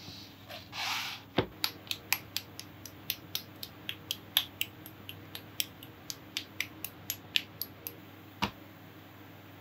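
A brief rustle of a paper instruction sheet, then a quick run of small sharp clicks, about three a second, as plastic Gunpla model-kit parts are pressed and snapped together, with a duller knock near the start and another near the end.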